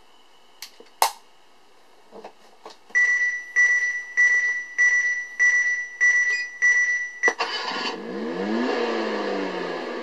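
Simulated engine sound from a Tamiya MFC-02 sound unit's small speaker: a couple of clicks, then about seven even pulses with a steady high tone, like a starter cranking, after which the engine sound catches about seven and a half seconds in and runs on with the revs sweeping.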